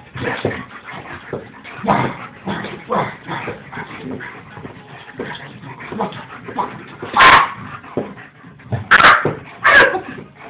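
A dog whimpering and yipping again and again while it is teased and wrestled with, play-biting, then three loud, sharp barks near the end.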